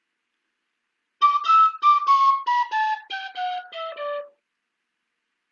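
A flute-like wind instrument plays a run of about a dozen short notes that step down in pitch, starting about a second in.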